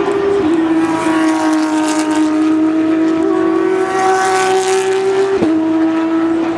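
Formula 1 cars' turbocharged V6 engines at high revs, a loud sustained engine note that climbs slowly in pitch. It dips sharply and picks up again about five seconds in, like a gear change, with fainter engine notes at other pitches underneath.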